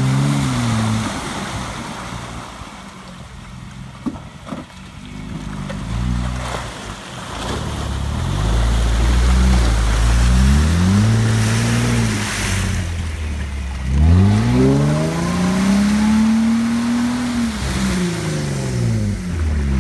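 Jeep Wrangler engine revving up and down several times as its tyres spin and churn through deep mud, throwing up slurry. The engine eases off for a few seconds early on, then climbs sharply about two-thirds of the way through and holds high before dropping back.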